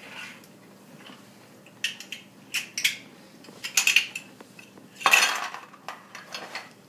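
Jenga game blocks and pieces clattering and knocking together in a series of sharp clacks, the loudest about five seconds in.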